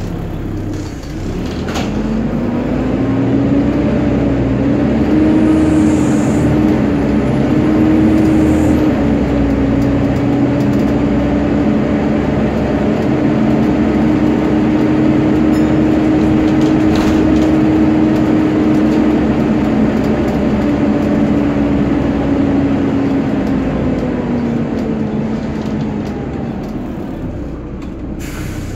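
Volvo B7TL bus's engine cooling fan with a hoover-like whine. It rises in pitch as it spins up about a second in, holds steady, then falls away near the end, over the rumble of the moving bus's engine and road noise.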